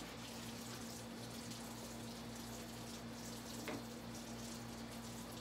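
Tap water running steadily into a kitchen sink, over a low steady hum. A faint click comes about three and a half seconds in.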